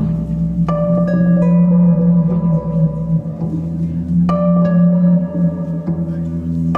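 Live instrumental music from a double bass and guitar duo: a held low drone runs under bell-like, chiming notes that ring on. The chiming notes come in two clusters, about a second in and again a few seconds later.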